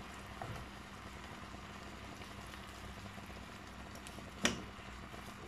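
Chicken and diced vegetables sizzling faintly and steadily in a stainless steel pan, with one sharp knock of a utensil on the pan near the end.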